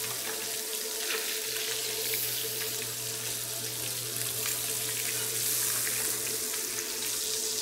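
Grouper fillets sizzling in hot butter and oil in a stainless frying pan as they sear: a steady hiss with small crackles of spatter. A steady low hum runs underneath.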